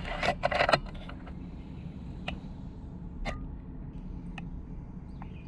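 A cluster of sharp clicks in the first second, then single clicks roughly once a second, over a steady low background rumble.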